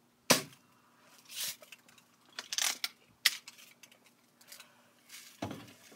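Close handling noise of hands working small items, such as fishing line on a homemade rod: a sharp click about a third of a second in, rustling scrapes, another click about three seconds in, and a last rustle near the end.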